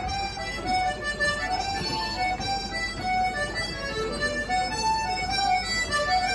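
Two accordions playing a dance tune together, a steady melody of short held notes.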